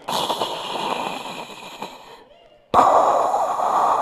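A man breathing loudly through hands cupped over his mouth into a microphone, imitating an astronaut breathing in a spacesuit, a sound likened to Darth Vader. Two long breaths: the first fades out about two seconds in, and the second starts after a short pause.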